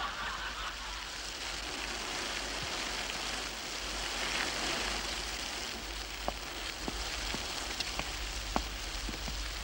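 Steady rain falling, a continuous even hiss, with scattered drops tapping from about six seconds in.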